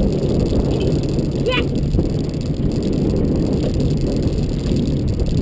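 Boat motor running steadily under way, with wind and water noise, and a brief high chirp about one and a half seconds in.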